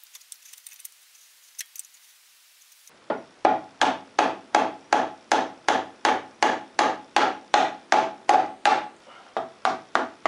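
A hammer striking steel socket extensions set in the holes of an ATV rear axle bearing carrier, knocking the carrier round in its housing so its tab lines up with the slot. The blows start about three seconds in, after a few light metal clinks, and run steadily at about three a second, each with a short metallic ring.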